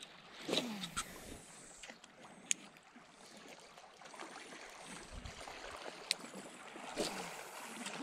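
Calm shallow sea water lapping and gurgling against a rocky shore, with scattered sharp clicks and a short falling squeak about half a second in.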